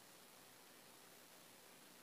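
Near silence: faint steady hiss of the recording.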